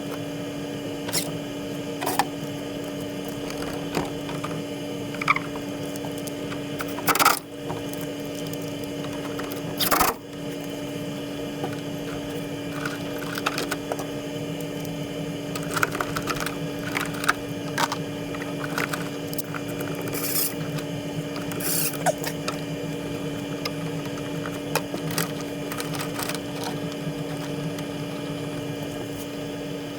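Scattered metallic clicks and knocks of tools and furnace parts being handled during the draft inducer swap, over a steady hum. Two louder knocks come about seven and ten seconds in.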